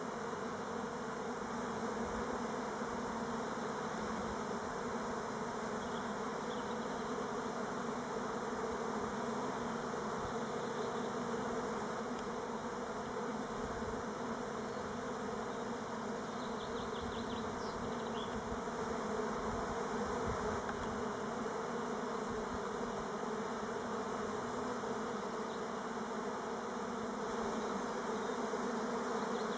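Elgon Buckfast honey bees flying in numbers around the hive entrance, a dense, steady buzzing hum. These are orientation flights, which the beekeeper hopes are not the start of a swarm.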